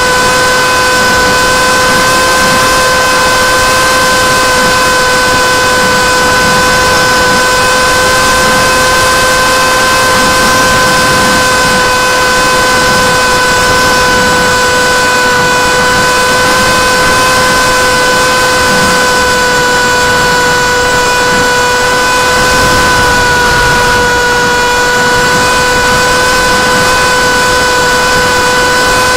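Electric motor and two-blade propeller of a small RC flying wing whining at a steady pitch over rushing air, recorded by a camera mounted on the wing. The pitch holds almost constant, dipping slightly about three-quarters of the way through.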